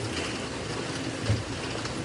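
Slime being squished and worked by hands, giving a steady run of small wet crackles with a soft low thump about a second and a quarter in.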